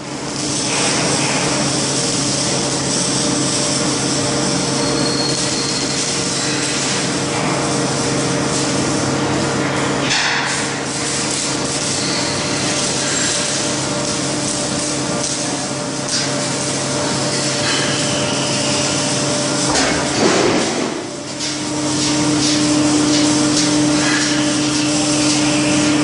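Automatic carpet washing machine running: a steady motor hum under a hiss of brushing and water. There is a brief louder sweep about ten seconds in and another about twenty seconds in, after which the hum grows stronger.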